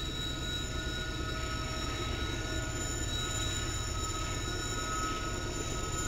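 Norfolk Southern freight train rolling past: diesel locomotives and freight cars give a steady low rumble, with a steady high-pitched whine over it.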